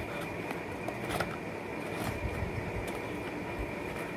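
Paperboard box being handled and opened: faint scraping of card flaps and a few light clicks over steady background noise with a thin high whine.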